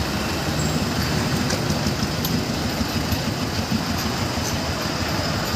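Heavy goods trucks' diesel engines running at low speed as they pull across, a steady low rumble of engine and road traffic noise.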